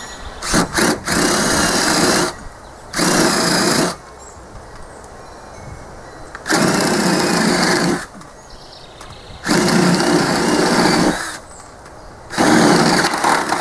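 Electric drill driving a 7/8-inch flat wood-boring (spade) bit up through a soft pine soffit. It runs in a couple of short blips, then about five runs of one to two seconds each, with pauses between.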